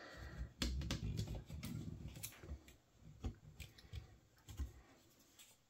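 Light clicks, taps and scraping of a new metal-backed cleaner blade being seated into the plastic frame of a Toshiba copier drum unit, fading out near the end.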